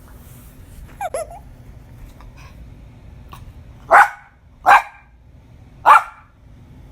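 Small dog, a chihuahua, gives a short high yip about a second in, then barks three times, sharp and loud.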